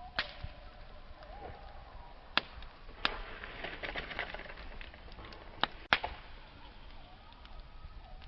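Wood campfire crackling, with sharp, loud pops every second or two and a denser run of small crackles in the middle, over a faint hiss and a thin, wavering whistle.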